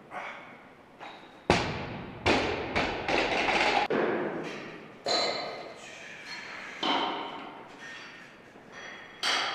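A loaded barbell with Werksan bumper plates dropped from overhead onto a lifting platform: a heavy thud about a second and a half in, two smaller bounces, then the plates and bar rattling for about two seconds as it settles. Lighter knocks follow as the bar is handled.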